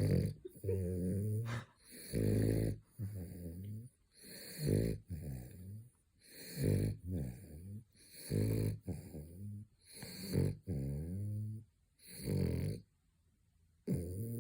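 French bulldog snoring in its sleep: a pitched, buzzing snore on each breath in and out, about one breath every two seconds, with a short quiet gap near the end.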